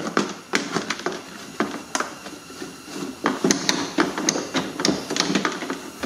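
Irregular plastic clicks and knocks of a Dodge Journey front door's inner module panel being pulled and worked loose from its holders, still caught at the rear by the door lock actuator.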